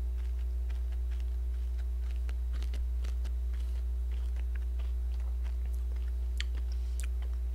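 A mouthful of plain granulated white sugar being chewed close to a microphone: faint, scattered little crunches and mouth clicks over a steady low hum.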